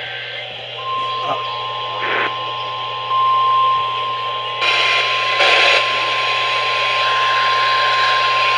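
NOAA Weather Radio warning alarm tone: a single steady 1050 Hz beep, starting about a second in and held without a break, played over a radio with hiss and static. It signals that a warning is about to be read. The static grows louder for about a second midway through.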